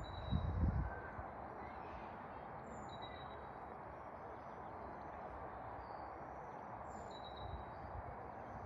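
Steady outdoor wind noise with scattered short, high bird chirps. Low wind buffeting on the microphone in about the first second.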